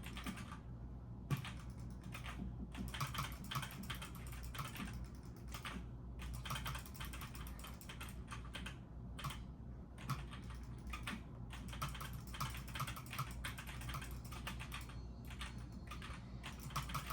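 Typing on a computer keyboard: fast, irregular key clicks with a few short pauses, over a steady low hum.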